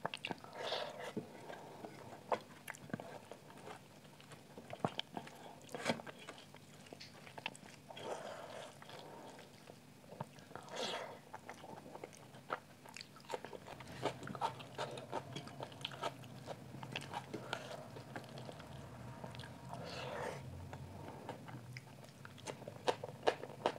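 Close-miked eating: chewing, biting and wet mouth clicks as rice and green hariyali chicken curry are eaten by hand. Fingers mix the food on a steel plate, and a few louder wet mouth sounds stand out about a second in, around 8 and 11 seconds, and near 20 seconds.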